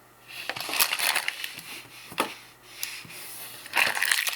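1993 Fleer Ultra basketball cards being handled and flipped through by hand: uneven scrapes of card sliding over card, with several sharp clicks and a louder rustle near the end.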